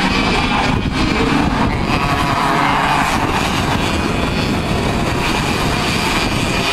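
A pack of KF2 racing karts, their 125cc two-stroke engines running at high revs as they race past, growing louder about two to three seconds in.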